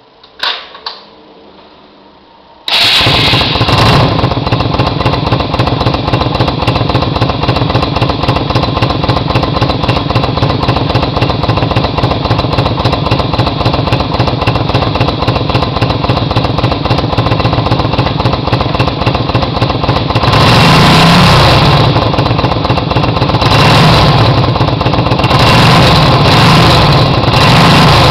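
Yamaha XVS125 Drag Star's small air-cooled V-twin engine starting suddenly after a few faint clicks, then idling steadily. In the last third it is revved in several throttle blips, each louder than the idle.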